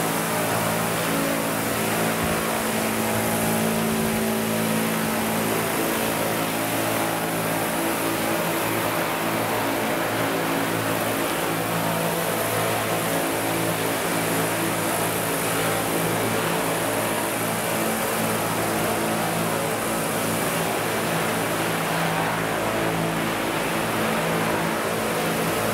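Two large radio-controlled Vario CH-47 Chinook scale model helicopters hovering and flying, their tandem rotors and drive giving a steady, even drone of low tones with a hiss above.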